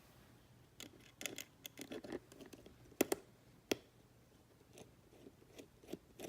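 Light clicks and short scrapes of tiny iPhone parts and screws being handled and set down during disassembly, with a few sharper clicks about three seconds in.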